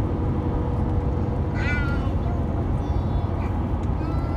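Car cabin noise from driving at speed: a steady low road and engine rumble. A short high-pitched squeal, falling slightly in pitch, cuts through about a second and a half in, with fainter ones near the end.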